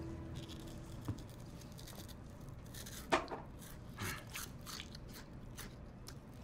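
Quiet small-room tone with a few faint clicks and rustles, the sharpest click about three seconds in; a low steady hum dies away about a second in.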